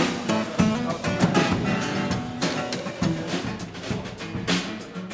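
Pop-rock band music: acoustic guitar over a drum kit keeping a steady beat.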